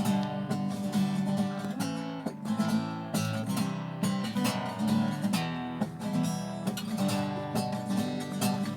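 Acoustic guitar strummed in a steady rhythm, playing the song's chord accompaniment alone between sung verses.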